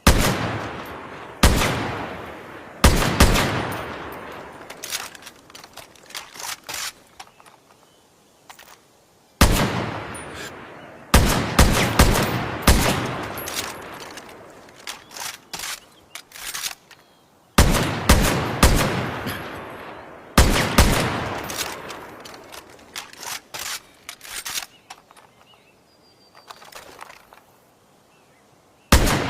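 A makeshift sound effect of an SVD Dragunov sniper rifle firing: a series of sharp single shots, each trailing off in a long echoing decay. Some shots come close together in twos and threes, with fainter clicks in between.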